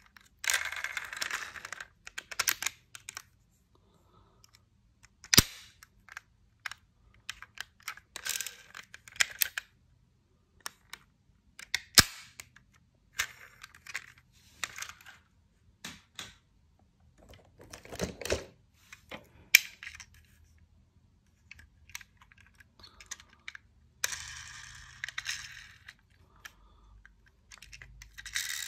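Small diecast toy cars clicking and clattering against each other as they are handled and rummaged through in a box. Short rattling stretches alternate with single clicks and a few sharp knocks.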